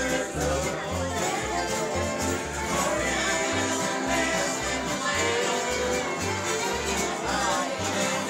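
Live acoustic bluegrass-country jam: strummed acoustic guitars, a fiddle, and an upright bass playing a steady two-beat bass line.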